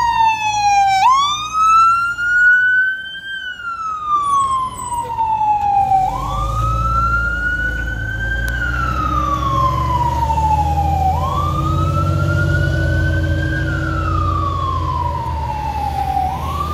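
Fire engine siren on a slow wail, its pitch rising and falling about every five seconds. From about six seconds in, the truck's diesel engine adds a low rumble under it.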